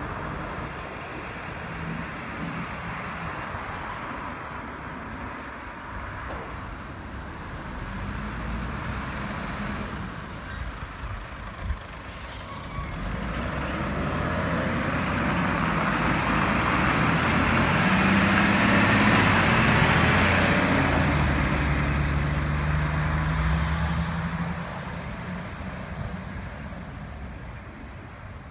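Hino FM 500 refuse truck's diesel engine running as the truck pulls out and drives past. It grows louder to a peak about two-thirds of the way through, then fades as the truck drives off. A single sharp click comes a little before the midpoint.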